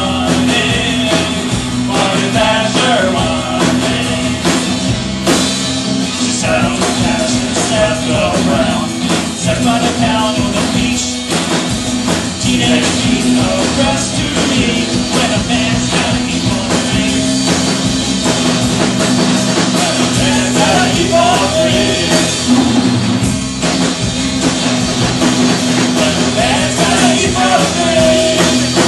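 Live rock band playing, with a drum kit prominent and singing over it.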